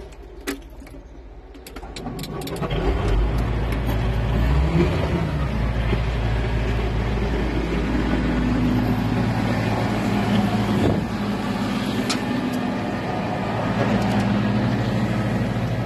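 Kalmar container handler's diesel engine starting about two seconds in, rising briefly in pitch as it catches, then settling into a steady idle.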